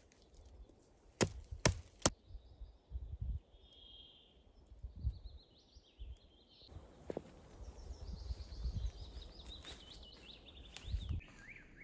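A knife chopping into a stick held against a log, three sharp strikes in the first two seconds. Then small birds singing, with a run of falling whistled notes from about seven seconds in, over soft low thuds.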